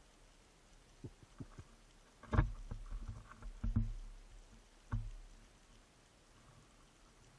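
Underwater knocks and thumps heard through the water: a few light taps about a second in, then three heavier knocks, each trailing off in a short low rumble.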